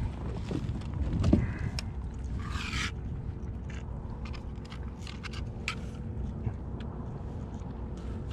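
Scrapes, clicks and light knocks on a plastic kayak hull and deck as a caught fish is handled in the footwell, with a louder bump about a second in, over a steady low rumble.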